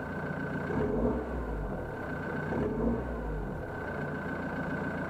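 Exhaust of a Ford Mondeo ST TDCi's 2.2-litre four-cylinder turbodiesel, remapped and fitted with a front decat and stainless twin-exit exhaust. It is blipped twice, about one and three seconds in, then settles to a steady idle.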